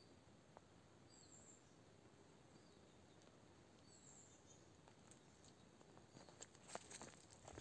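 Near silence with a faint outdoor hiss and two faint, brief high bird chirps, about a second and four seconds in. Near the end, soft rustling footsteps through undergrowth begin.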